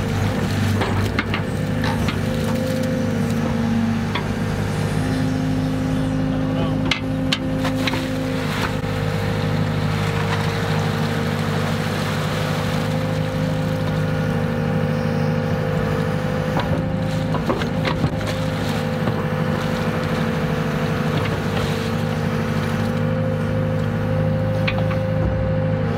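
Compact excavator's diesel engine running steadily, its pitch shifting slightly under hydraulic load as the bucket digs pond muck, with a few sharp metallic knocks from the bucket and arm.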